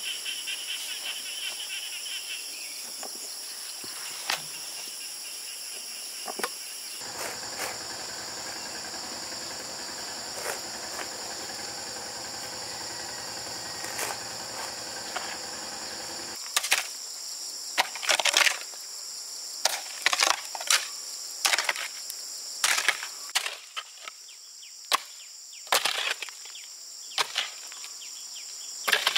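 Insects trilling steadily, a high continuous outdoor chorus. From about halfway through, a series of sharp knocks and taps comes irregularly, roughly once a second, like work on wood.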